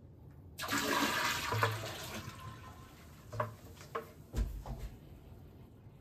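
Newly installed toilet bowl, with no tank fitted yet, flushing as a pail of water is poured into it: a sudden rush of water about half a second in that drains away over the next couple of seconds. A few knocks follow, with a low thump near the end. The bucket flush tests the bowl's seal to the floor flange for leaks.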